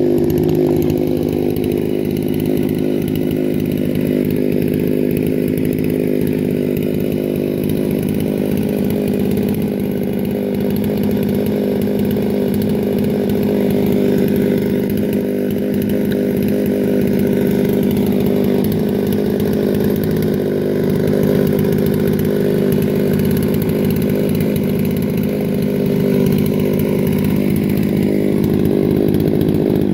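Chinese-made Stihl MS660 clone chainsaw idling steadily, a constant two-stroke engine note with no revving. It is left to idle after the milling cut, which the owner understands lets the engine cool with fresh fuel after the high revs.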